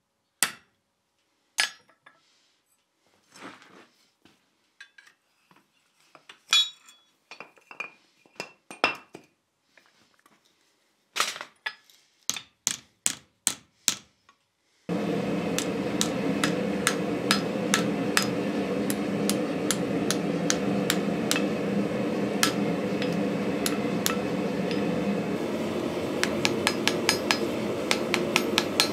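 Hammer tapping and clinking on steel at the anvil: scattered strikes with pauses as the axe head is set in a holding jig. About halfway through, a forge starts running with a steady rushing noise, and a series of hammer blows lands on the axe at welding heat: a forge-welding pass.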